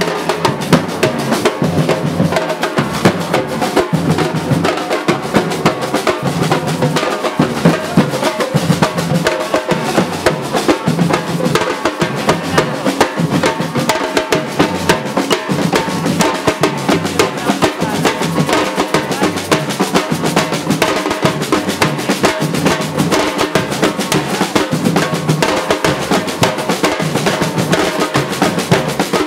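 Drums beating a fast, unbroken rhythm, with a dense clatter of strokes and some held tones behind.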